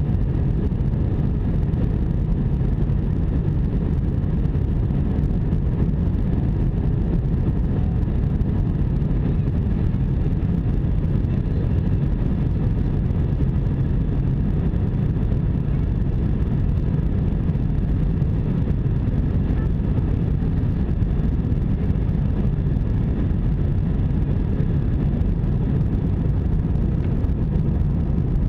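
Steady jet-engine and airflow noise inside the cabin of an Airbus A320: an even low rumble with a faint steady whine above it, unchanging throughout.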